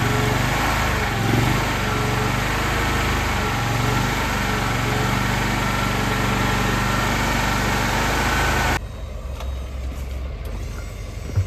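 Truck engine running steadily close by, then dropping suddenly to a much fainter engine sound about nine seconds in, with a single thump near the end.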